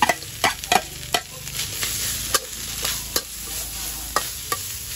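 Metal spatula clinking and scraping against a wok and plate as dove meat is tipped into curry paste frying in hot oil and stirred; the oil sizzles steadily, swelling after about a second and a half, under about nine sharp clinks.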